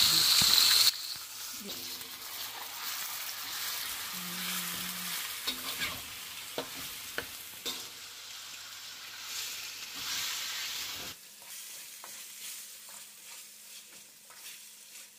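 Raw chicken pieces sizzling in hot oil in a steel karahi as they are stirred, with a metal spoon clinking and scraping against the pan. The sizzle is loud for the first second, then quieter, with a few sharp clinks in the middle.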